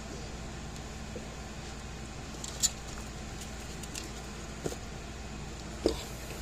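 Hand tools and a circuit board being handled and set down on a workbench: a few short clicks and knocks over a steady background hiss, the loudest a dull knock near the end.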